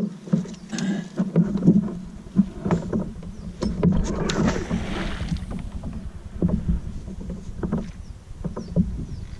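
Knocks and clunks against a canoe's hull as a small folding grapnel anchor and its rope are handled and thrown overboard, with a rushing noise about four to five seconds in.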